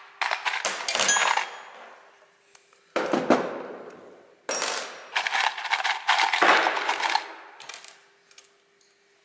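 Metal hand tools and small hardware clinking and rattling against each other, as if being rummaged through. It comes in three bouts, the longest in the middle, and thins to a few faint ticks near the end.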